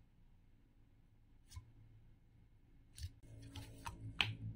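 Green slime being kneaded by hand in a glass bowl: a few faint, sticky clicks and squelches, sparse at first and more frequent toward the end. Soft background music comes in about three seconds in.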